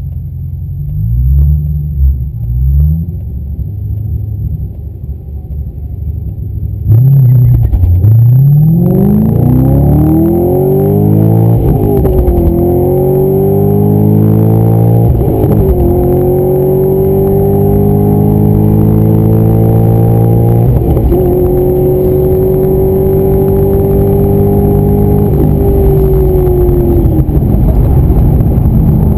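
C6 Corvette Z06's 7.0-litre LS7 V8 heard from inside the cabin: a few short blips of the throttle at idle, then a hard launch about seven seconds in. The engine note climbs through the gears, dropping back at each of three upshifts, holds nearly steady at speed, and falls away near the end as the throttle is lifted.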